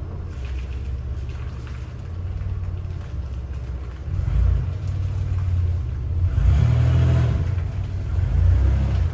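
2004 Chevrolet Impala LS's 3.8-litre V6 running at low speed while the car is manoeuvred into a garage. The engine note rises briefly about four seconds in and surges louder about six and a half seconds in, as the car is given some throttle.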